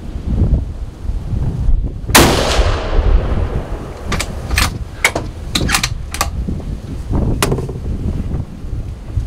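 A single rifle shot about two seconds in, its report trailing off over about a second, followed by several short sharp clicks and knocks. A low rumble of wind on the microphone runs underneath.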